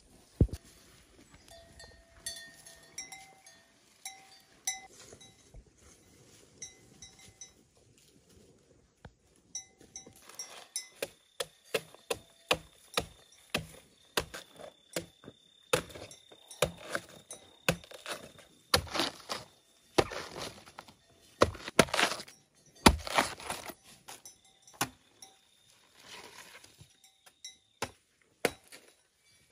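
Machete chopping into a banana trunk, a fast run of sharp strikes about two a second. It starts about ten seconds in and stops shortly before the end, after a stretch of only faint scattered sounds.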